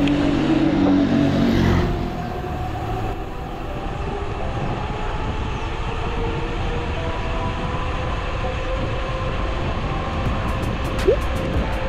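Rushing wind and road rumble on a bike-mounted action camera during a fast mountain-bike descent. A motor vehicle's engine is heard passing in the first two seconds. Light ticking comes in near the end.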